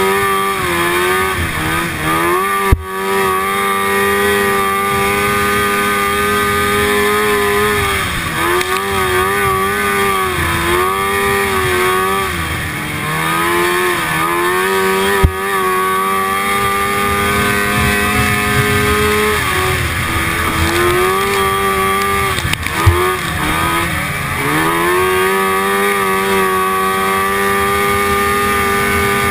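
1974 Rupp Nitro snowmobile's two-stroke engine at racing speed, heard up close from on board: a steady high-pitched run that dips and climbs again in pitch over and over as the throttle is eased and reopened through the turns. Three sharp knocks cut in along the way.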